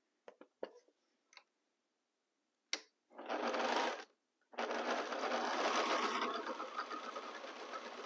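Domestic sewing machine stitching patchwork pieces together: a few light clicks, then a short run of about a second, a brief stop, and a longer steady run of about three and a half seconds.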